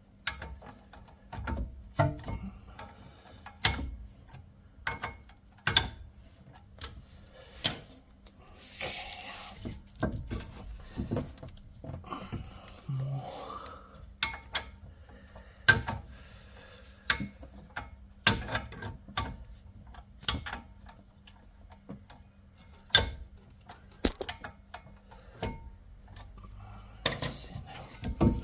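Hand tools clinking and knocking against the metal of a car's front brake caliper and its bolts: sharp, irregular clicks and knocks every second or two, with a brief hiss about nine seconds in.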